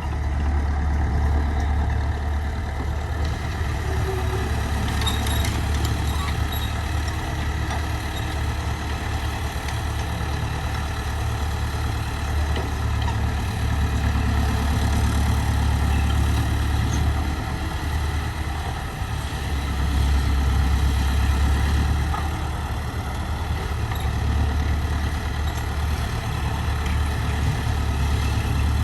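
A heavy engine running steadily: a deep, constant drone.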